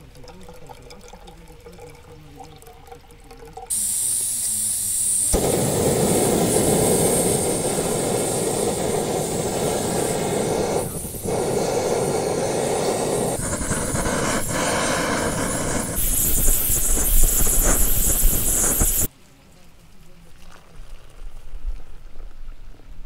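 Backpacking canister gas stove: a sharp hiss of gas about four seconds in, then the burner runs with a steady loud rush under a pot of water. It cuts off suddenly near the end, and water is then poured faintly into a cup.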